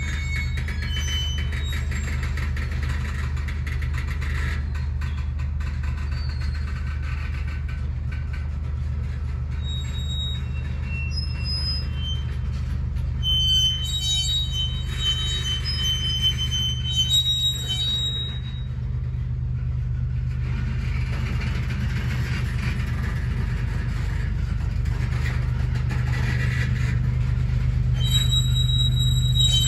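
Loaded ethanol tank cars of a freight train rolling slowly past with a steady low rumble. Brief high wheel squeals come in the middle and again near the end.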